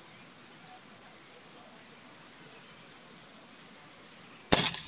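Insects chirping steadily in the background, then about four and a half seconds in a single sharp, loud shot from a Gamo CFR 4.5 mm (.177) spring-piston air rifle firing.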